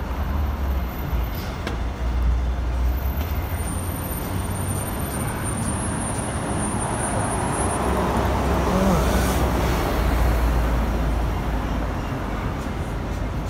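Road traffic on a busy multi-lane city avenue: a steady rumble of passing cars and a bus. It swells about halfway through as vehicles pass close, then eases off near the end.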